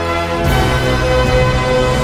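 Theme music with held chords over a steady bass line; a new chord comes in about half a second in.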